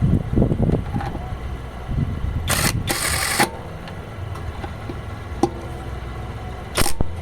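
Impact wrench run in short bursts, driving wheel bolts back in: two bursts about two and a half to three and a half seconds in, and another near the end, over a low steady rumble.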